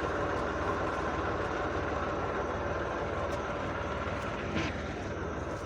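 Heavy farm machinery's diesel engine running steadily: a constant low hum with a steady whine over it, typical of a combine harvester at work.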